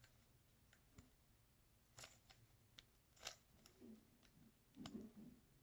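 Faint, scattered clicks and clacks of a Rubik's Cube's faces being twisted quickly by hand, about half a dozen turns.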